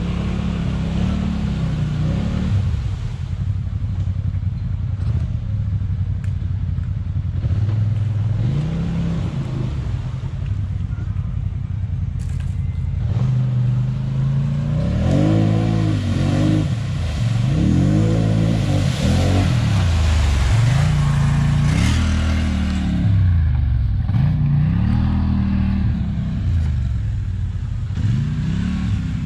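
Snorkeled mud ATV engine revved up and down over and over, with a run of quick rev-ups and drops in the second half.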